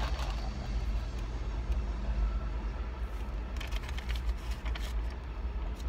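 Steady low rumble of a car, heard from inside its cabin, with a few light rustles and clicks about three and a half seconds in.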